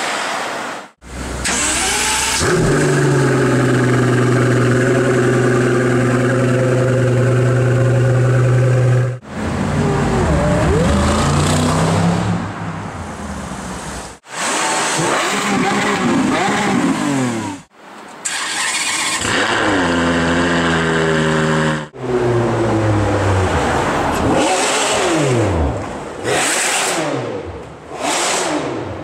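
Supercar engines revving in a run of short clips cut one after another: one engine holds a steady note for several seconds, and near the end there are repeated quick rising and falling rev sweeps.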